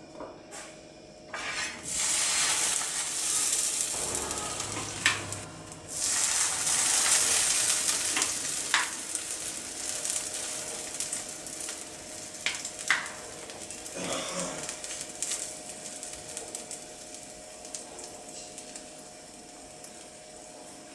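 Buttered sandwiches sizzling on a hot grilling pan. The sizzle sets in loudly about a second and a half in, surges again about six seconds in as more goes onto the pan, then slowly dies down, with a few light clicks along the way.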